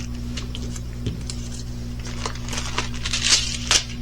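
Crinkling and rustling with small clicks as diamond painting canvases are handled, busiest in the second half, over a steady low hum.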